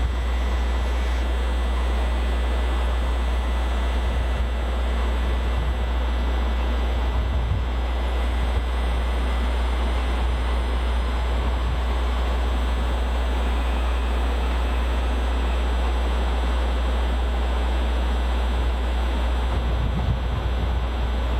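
Steady railway noise at a train station: an even low rumble under a constant hiss, holding level throughout with no passing, braking or horn.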